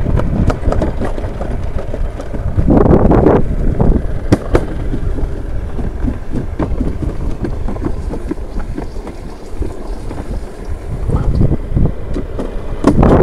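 Wind buffeting the microphone: a loud low rumble with small knocks, swelling louder about three seconds in.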